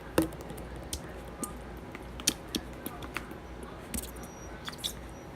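Slime being handled, with irregular small clicks and pops, the loudest just after the start and about two seconds in.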